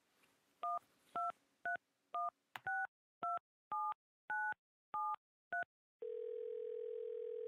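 Touch-tone phone keypad dialing a number: ten two-tone DTMF beeps about half a second apart. Then the line's ringing tone starts, a steady low tone that stops after about two seconds.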